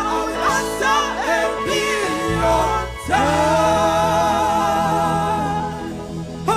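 Church gospel singing group performing a song over steady instrumental backing; about three seconds in the voices hold one long note.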